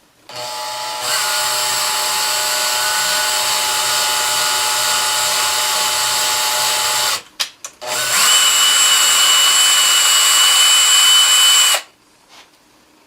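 Power drill running in two long stretches with a short stop between, the second louder with a steady high whine. It is making a 6-32 threaded hole in a small metal pad.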